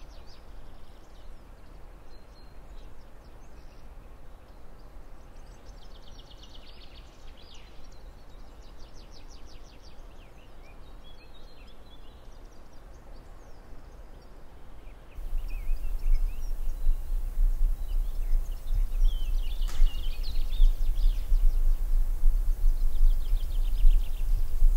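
Small birds chirping and giving fast high trills over a faint outdoor background. About fifteen seconds in, a steady low rumble comes in and stays, much louder than the birdsong, while the chirping goes on.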